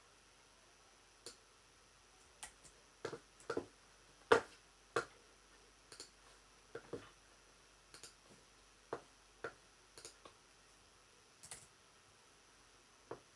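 A series of irregular, sharp clicks and taps, scattered unevenly with a louder cluster about three to five seconds in.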